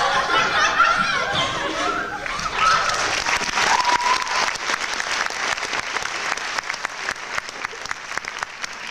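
Cast voices in the first two seconds, then an audience applauding in a hall, the clapping tailing off slowly toward the end.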